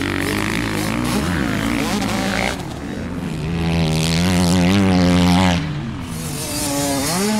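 Dirt bike engine revving noise, its pitch wavering and gliding up and down, loudest from about three and a half to five and a half seconds in, then dropping and rising again near the end.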